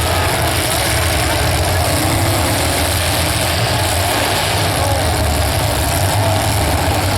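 Demolition derby car's engine running steadily at low revs, with a strong low hum.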